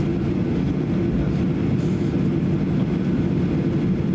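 Steady low drone inside the cabin of a Boeing 737-800 taxiing after landing, its CFM56-7B engines running at low taxi power.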